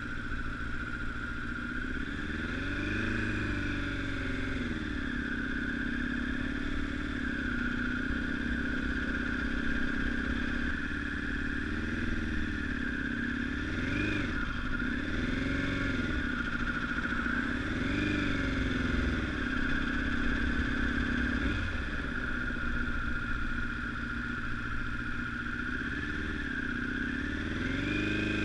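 Honda CBR1000RR inline-four sportbike engine running on the road, its revs rising and falling several times as the throttle is opened and eased, over a steady low rush of wind and road noise.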